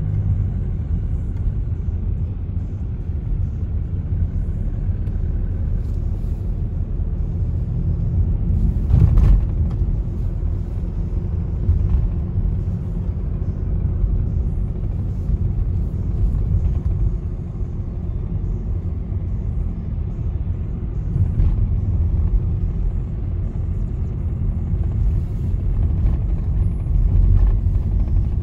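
Low, steady rumble of a moving vehicle in motion, with a short knock about nine seconds in.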